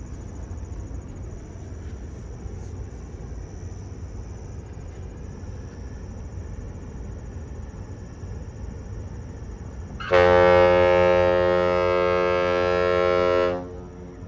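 The CSL Niagara freighter's ship horn sounding one long, steady salute blast, starting about ten seconds in and lasting about three and a half seconds, the loudest sound here. Before it, a low steady rumble.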